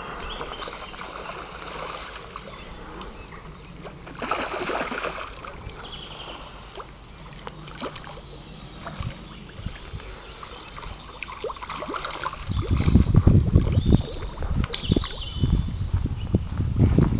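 Spawning carp splashing at the pond's surface, with a louder burst of splashing about four seconds in, while small birds chirp. Wind buffets the microphone in the last few seconds.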